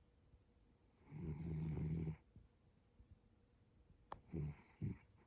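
Maine Coon cat snoring in its sleep with a piglet-like snore. There is one long snore of about a second, then two short snorts near the end.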